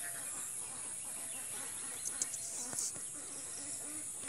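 Hands sorting wet weeds on a nylon push net, with a few light rustles and clicks, over faint background calls of birds or poultry.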